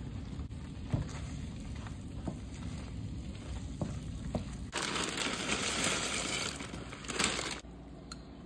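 Chopped cooked chicken tipped off a paper plate into a skillet of hot cream sauce and stirred in with a wooden spoon, with soft knocks and scrapes. About five seconds in a louder, steady sizzling hiss starts, lasting about three seconds, then cuts off abruptly.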